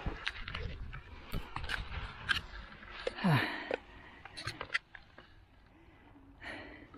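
Nylon paraglider wing and its lines rustling and crackling as the canopy is gathered up off the grass, with scattered sharp clicks. A brief sound slides down in pitch about three seconds in.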